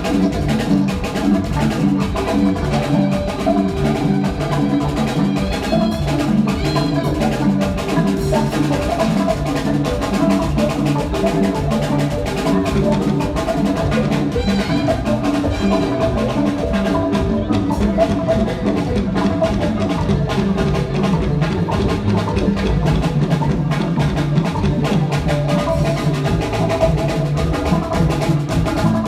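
Live band music at a sound check: drum kit and hand percussion playing a steady groove over sustained pitched instrument parts.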